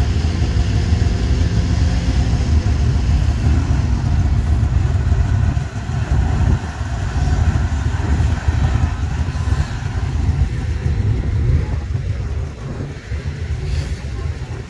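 Several racing snowmobile engines, two-strokes, running together at warm-up in a loud, rough, steady rumble.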